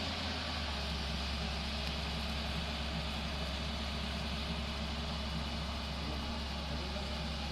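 Excavator's diesel engine running steadily, a constant low drone.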